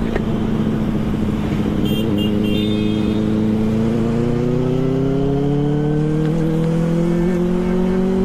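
Benelli TNT 600i's inline-four engine running under way. Its pitch holds for about two seconds, then rises smoothly as the bike accelerates. A few short high tones sound briefly about two seconds in.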